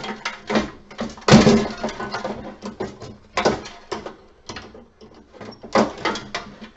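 Pliers clicking and knocking against the plastic housing and wiring of an emergency lighting unit being taken apart for scrap: a string of irregular clicks and clatters, the sharpest knock about a second and a half in.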